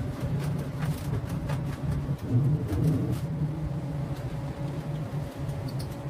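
Steady low fluttering hum throughout, with scattered light clicks and knocks from a screwdriver and a ceiling fan blade being handled.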